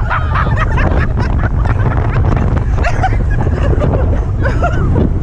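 Heavy wind buffeting the microphone of a camera riding an inflatable towed fast behind a speedboat, over the rush and splash of water, with short shouts and laughs from the riders scattered through it.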